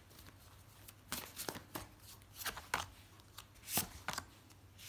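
Oracle cards being handled: a scattering of faint, brief swishes and light clicks as cards are slid and laid down on the spread.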